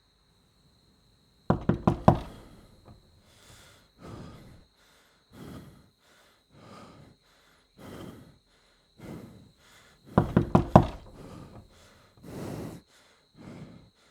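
Two bursts of rapid knocking, about five quick knocks each, one near the start and one about ten seconds in. Between them come slow, heavy breaths, each about a second apart.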